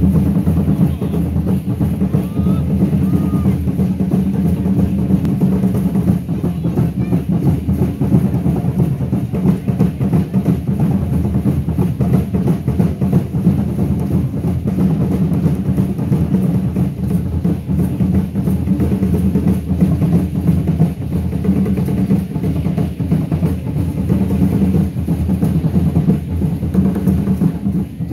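Aztec dance drumming: large drums, the huehuetl used by Aztec dance groups, beaten in a fast, driving rhythm that keeps going without a break.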